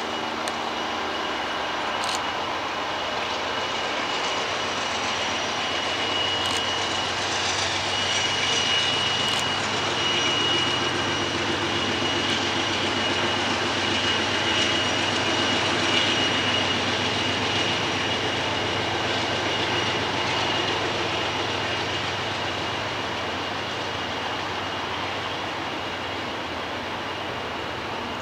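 Norfolk Southern freight train of tank cars rolling past: a steady rumble of wheels on rail, with a thin high steady whine over it. The noise swells a little toward the middle and eases off near the end.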